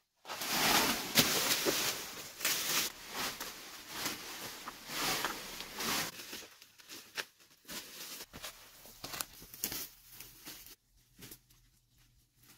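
Bamboo leaves and dry twigs rustling and crackling as someone pushes through a dense bamboo thicket. The sound is loudest in the first half and thins to scattered snaps near the end.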